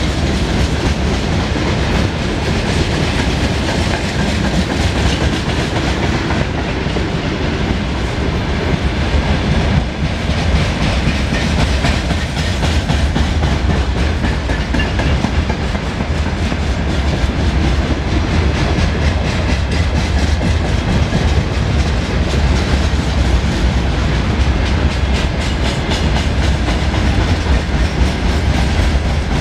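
Freight train wagons rolling past close by: a steady heavy rumble with a rapid clickety-clack of wheels over the rail joints.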